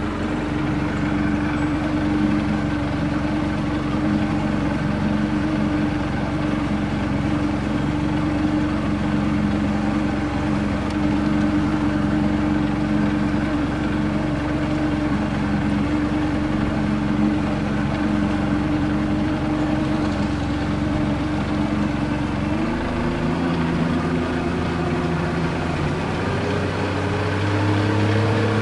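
Small motorboat's engine running at a steady low speed, then throttling up with a rising pitch about three-quarters of the way through and rising again near the end.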